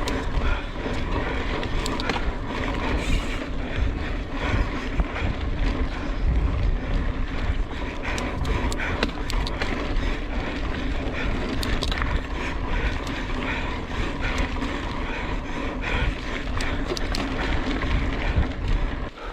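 Mountain bike being ridden fast over a rough dirt trail: a steady rush and rumble of tyres and air, with constant clicks and rattles from the bike.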